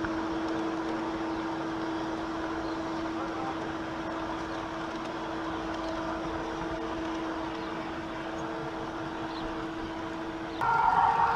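G-scale model train running on its garden track, heard from a car riding in the train: a steady electric-motor and gear hum at one constant pitch, with rolling noise from the wheels. Near the end the hum cuts off and louder music starts abruptly.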